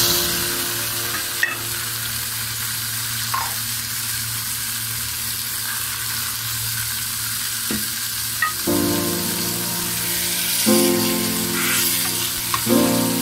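Skate wing frying in a hot nonstick pan, a steady sizzle, with a wooden spatula tapping and scraping against the pan a few times. Soft background music chords come in during the second half.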